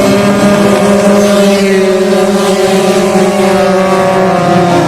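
80cc racing scooter engine held at high revs at full throttle, a steady high-pitched buzz that eases slightly in pitch near the end.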